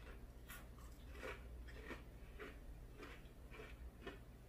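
Faint crunching of someone chewing a crispy-battered tempura shrimp, about two crunches a second.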